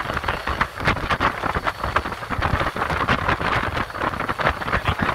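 Wind buffeting the microphone in uneven gusts over the rush of water past the hull of a small yacht under way.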